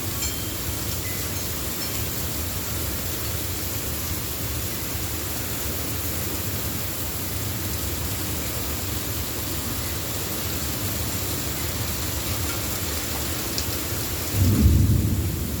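Heavy thunderstorm rain pouring down steadily, with a low rumble underneath and a loud low boom of thunder about a second from the end.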